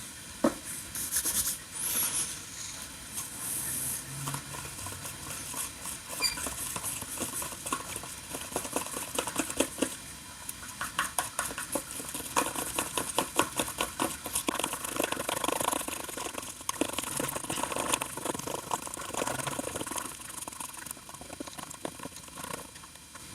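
Repair adhesive being stirred in a small container: irregular light scraping and clicking that goes on for the whole stretch.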